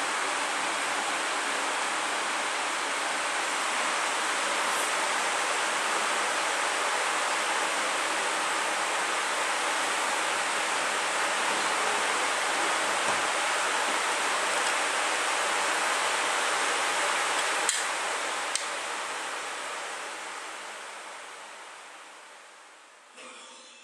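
Steady, dense rain hiss. Two sharp clicks come late on, and then the rain fades away.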